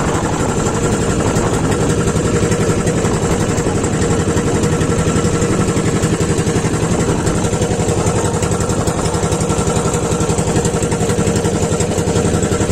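Engine of a motorised bangka (Philippine outrigger boat) running steadily under way, loud with a fast, even pulse.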